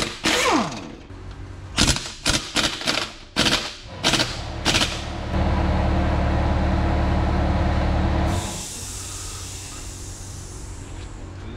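Impact wrench hammering on wheel lug nuts in a string of short bursts over the first five seconds. Then comes a steady, louder running sound for about three seconds, and after it an aerosol spray can hissing steadily as it is sprayed onto the wheel hub.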